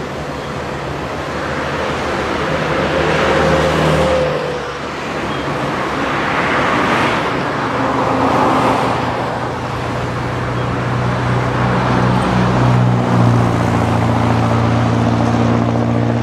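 Cars passing by at speed on a highway, the tyre and engine noise swelling and fading several times. A steady low hum sets in for the last few seconds.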